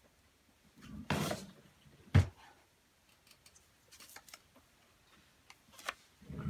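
Paper and craft supplies being handled: a short rustle about a second in, a single sharp knock just after two seconds, then a few light clicks and taps.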